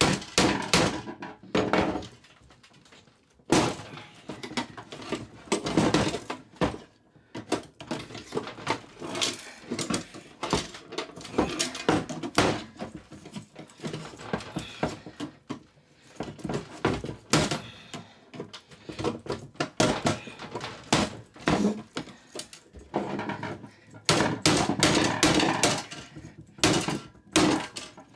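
Pry bar forced into the lid seam of a BillConch small biometric gun safe: a long run of metal clanks, knocks and scraping as the tool is levered and reset, with a few short pauses.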